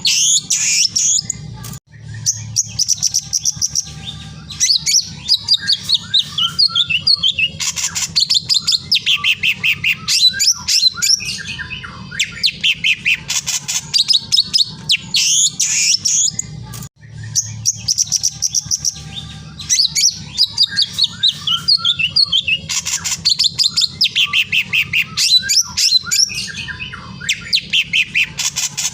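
Birds chirping and trilling in rapid runs, over a low steady hum; the same stretch of birdsong repeats about every 15 seconds, a looped nature-ambience track.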